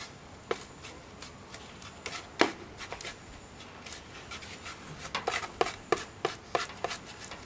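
Small hand trowel scraping and jabbing into sand, working a granular soil amendment into the top layer. Separate gritty strokes, one louder about two seconds in, then a quick run of about three strokes a second near the end.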